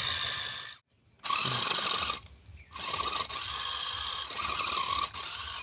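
Small electric drive motor and plastic gearbox of a toy RC monster truck whining as its wheels spin, with a brief break about a second in and another dip about halfway through: the truck is stuck and not moving forward or back.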